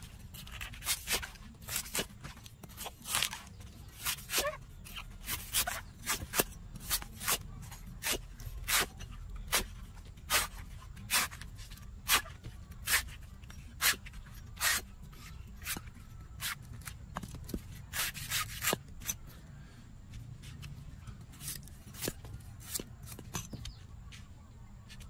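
Meat cleaver shaving and chopping the green husk off a fresh king coconut: a string of sharp cuts, about one or two a second, thinning out after about twenty seconds.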